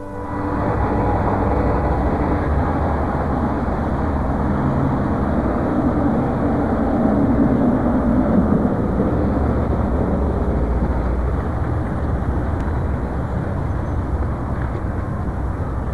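City street traffic noise: a steady low rumble of passing vehicles, swelling a little around eight seconds in.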